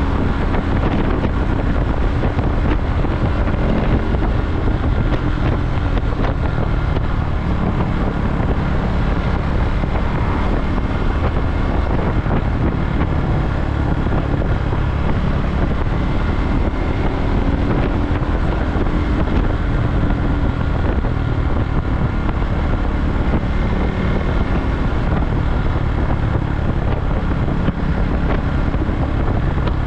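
KTM Duke motorcycle engine running at a steady cruise under heavy wind noise on the microphone.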